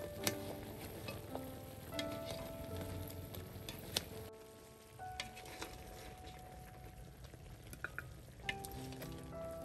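A ladle stirring braised tofu and pork leg in an aluminium pot, scraping and clicking against the metal over the simmering sizzle of the braise. Near the end a few clinks as food is scooped out. Soft background music with held notes runs underneath.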